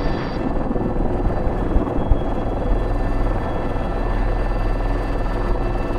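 Airbus H125 helicopter in flight, heard from the cockpit: a steady low rotor and turbine drone with thin, steady high whine tones. A couple of brief low knocks come about two seconds in.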